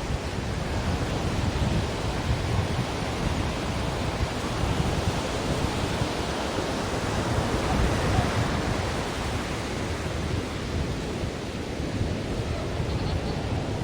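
Ocean surf: a steady rush of waves washing in, with no single breaking crash standing out.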